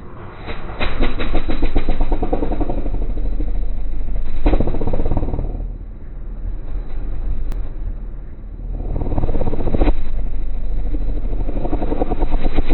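Straight-piped truck engine firing up and revving through its exhaust, surging and easing off several times with a rapid, even firing beat.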